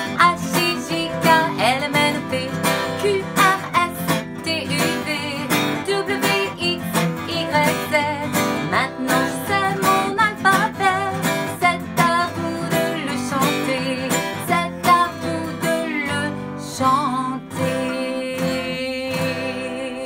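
Acoustic guitar strummed steadily while a woman sings the alphabet in French along with it. It grows a little quieter over the last few seconds.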